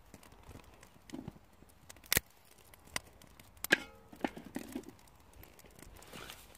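Thin sticks being handled and laid onto a small kindling fire in a metal fire bowl: a few sharp cracks and knocks about two, three and nearly four seconds in, the last with a brief metallic ring.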